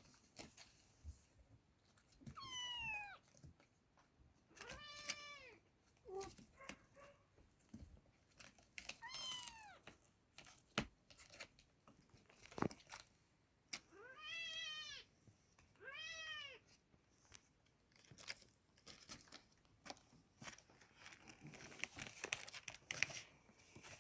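Oriental kittens meowing: about five short, high-pitched calls, each rising then falling, spread a few seconds apart, with small clicks and rustles in between.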